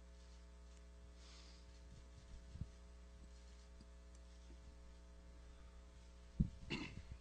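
Steady low electrical hum of the room's sound system, with a sharp thump about six seconds in as the table microphone is handled and passed along, followed by a brief rustle.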